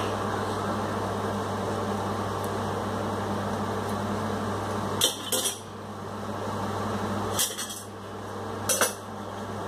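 Steel ladle knocking against an iron kadai and clinking down onto a steel plate, a few sharp metallic knocks about five seconds in and again near the end, over a steady low hum.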